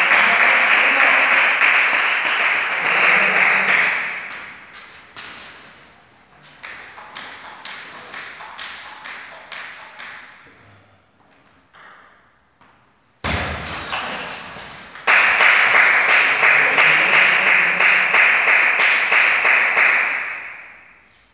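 Table tennis ball clicking sharply on the table and bats in a run of evenly spaced ticks. Before and after it, a loud steady rushing noise fills the start and again from about 15 s, fading out near the end.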